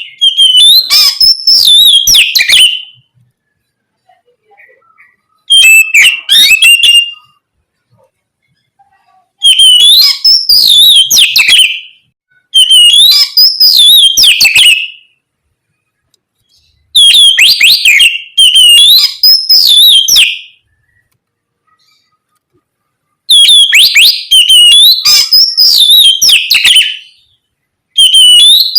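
Oriental magpie-robin singing loud, clear whistled song in phrases of two to four seconds, with sliding and warbled notes, repeated about seven times with short pauses between.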